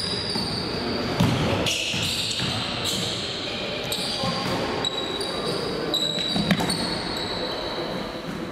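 Basketball game on a hardwood gym floor: the ball bouncing as it is dribbled, with high squeaks from sneakers and players' calls ringing in the large hall.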